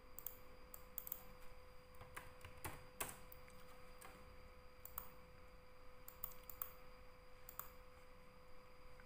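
Faint, scattered clicks and taps of a computer keyboard and mouse at uneven intervals, over a faint steady electrical tone.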